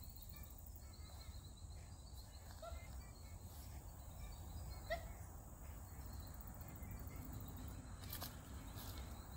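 Quiet woodland ambience: a low steady rumble, a thin high steady tone and a few faint bird chirps, with a couple of brief clicks near the end.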